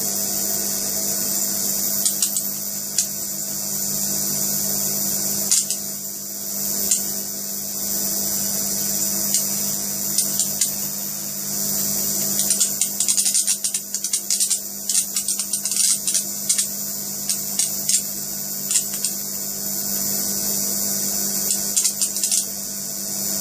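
High-voltage arc from a ZVS-driven flyback transformer burning onto a CRT's glass: a steady high-pitched hissing buzz over a low hum, broken by sharp crackles that come thick and fast around the middle.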